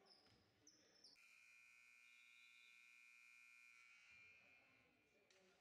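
Gym scoreboard horn giving one steady buzz of about three seconds, starting suddenly about a second in. A few short, high sneaker squeaks come just before it.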